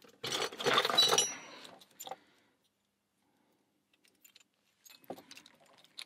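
Metal Kaba lock cylinders and their keys clattering and jangling together as they are taken out of a box onto a workbench: a loud burst of clinking with brief metallic ringing in the first second or so, a single knock about two seconds in, then a few faint clicks near the end.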